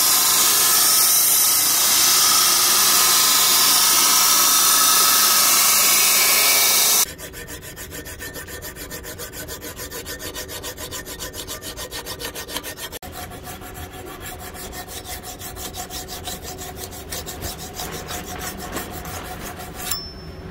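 Belt grinder grinding a steel axe head, a loud steady hiss that stops abruptly about seven seconds in. Then a hand file rasps back and forth along the blade's edge in a quick, even rhythm.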